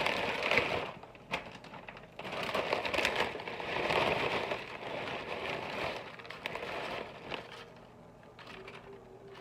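Tortilla chip bag crinkling as chips are shaken out and clatter onto a plate, with many small clicks of chips landing. It comes in two stretches, a short one at the start and a longer one from about two seconds in, then quiets near the end.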